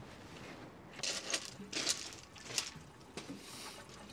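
Light metallic clinks and scrapes of a spanner working on the radiator mounting bolts in a van's engine bay, a handful of short sharp knocks between about one and three seconds in.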